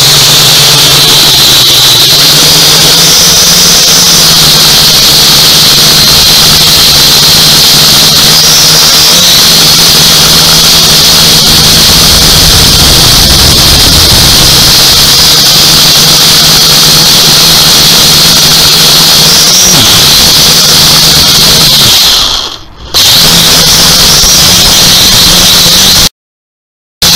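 U818A quadcopter's electric motors and propellers whining and buzzing very loudly, heard from the drone's own onboard camera in flight. The whine steps up and down in pitch as the throttle changes. The sound dips briefly about three-quarters of the way through and cuts out for about a second near the end.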